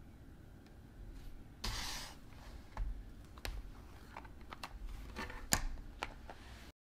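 Small handling sounds of a spiral-bound notebook: a soft rustle as it is closed, then scattered clicks and taps as its elastic strap is pulled over the cover and a pen is handled on it.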